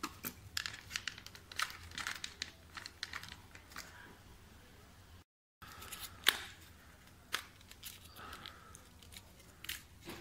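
Hard white ABS plastic parts of a Xiaomi Mijia automatic foam soap dispenser being handled and fitted together: a quick run of sharp clicks and scrapes for the first few seconds, then scattered clicks with one loud snap about six seconds in. The sound cuts out completely for a moment just past five seconds.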